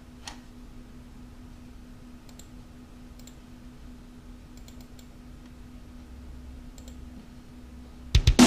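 A few faint, widely spaced computer mouse clicks over a steady low electrical hum. Near the end come several loud, sharp sounds as the audio track starts playing.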